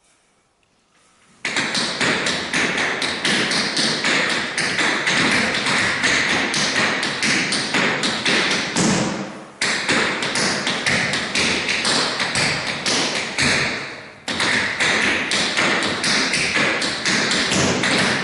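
Metal-plated tap shoes striking a wooden floor in fast, continuous tap-dance rhythms, starting about a second and a half in. The tapping breaks off briefly twice partway through and stops abruptly at the end.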